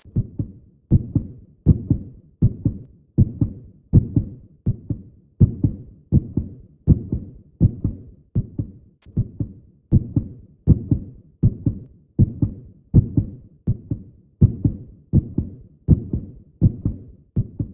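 A steady heartbeat-like beat: pairs of low thumps repeating about every three quarters of a second, with nothing else over them.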